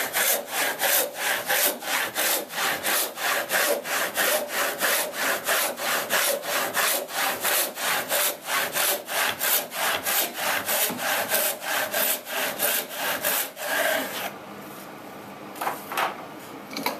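Hand rip saw resawing a pine board to thickness, with steady back-and-forth strokes at about three a second. The sawing stops about fourteen seconds in, followed by a few short knocks as the saw and board are handled.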